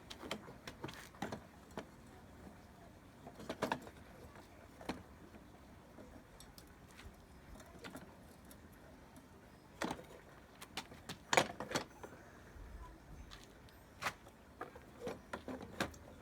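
Irregular metallic clinks and taps of screws, tools and engine parts being handled while screws are fitted to a 50cc minimoto engine. The clinks come in scattered clusters, loudest a little past the middle.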